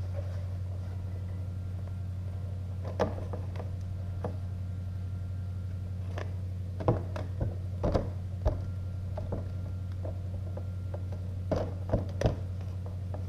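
A steady low hum with scattered light clicks and knocks from objects being handled, a few of them in quick succession near the middle and again near the end.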